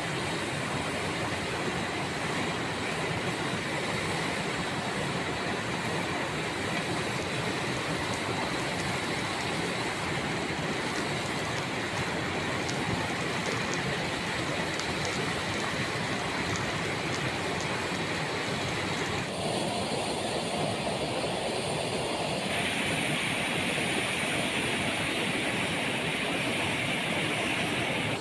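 Steady roar of a waterfall's rushing water. Its tone shifts abruptly twice, about 19 and 22 seconds in.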